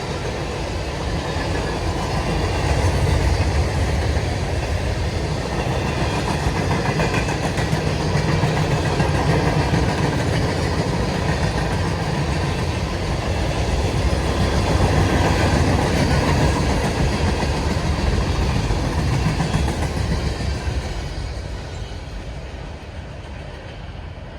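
A CSX manifest freight train rolling past on the rails with a steady low rumble and wheel clatter from the cars. It fades away over the last few seconds.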